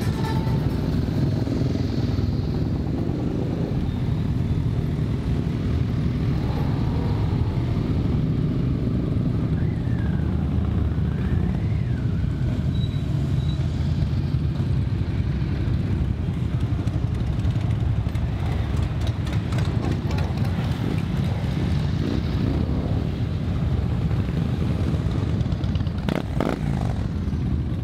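A procession of motorcycles, cruisers and three-wheeled Can-Am Spyders, riding slowly past one after another. Their engines run in a steady, loud, low drone.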